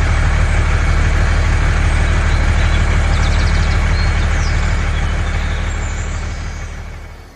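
A heavy vehicle engine running steadily with a deep, even rumble, fading out over the last two seconds.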